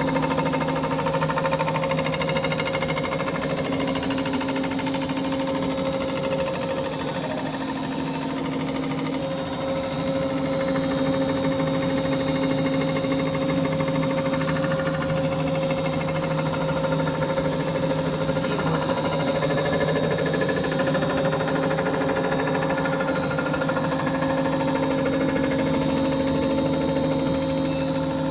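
Metalworking machine tool running steadily while machining a VR38 engine block, with a continuous even hum of several steady tones.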